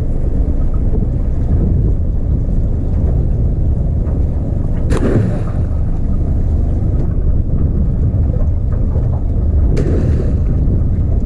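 Small fishing boat under way on choppy water: a steady motor-and-hull rumble with wind buffeting the microphone. Two sudden louder splashes or hull slaps come about five seconds in and near the end.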